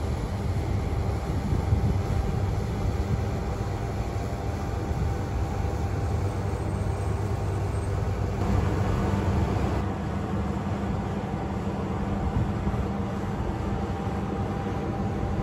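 A bulk carrier's diesel engine and onboard machinery running close by, a steady low hum with constant tones.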